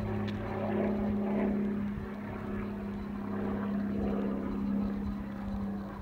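A steady motor hum at an even, unchanging pitch.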